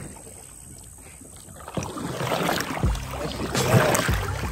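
Kayak paddle strokes splashing in calm water, starting about two seconds in after a quieter stretch, with a few low thumps.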